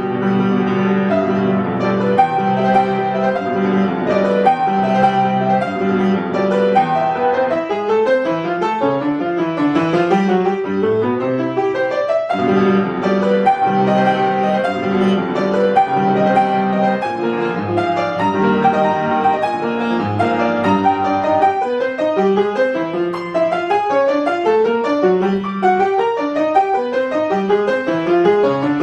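Piano playing a classical-style piece, a continuous stream of notes at a steady pace; about twelve seconds in the passage starts over and repeats its opening phrase.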